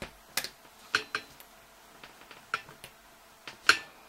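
Irregular light metallic clicks and taps as the two prongs of a magnetic snap are bent flat over its metal washer with a metal tool. The loudest click comes near the end.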